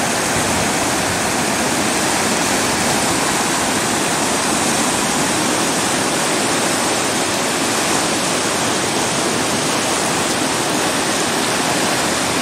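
River rapids rushing over rocks: the steady, loud noise of white water.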